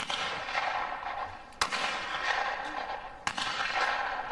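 Three shotgun shots about a second and a half apart, squad members firing in turn at clay targets. Each sharp report is followed by an echo that lasts about a second.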